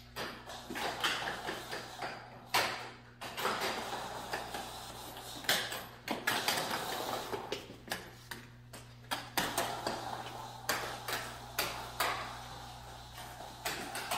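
Heelys (wheeled sneakers) rolling and scuffing across a ceramic-tiled floor, with irregular footsteps and sharp clacks of the shoes against the tile.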